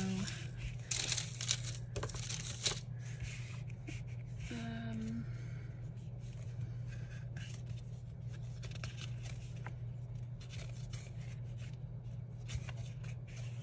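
Paper rustling and crinkling as sticker-book pages are flipped and sticker sheets handled, with a cluster of sharp rustles in the first few seconds and scattered soft ones after, over a steady low hum.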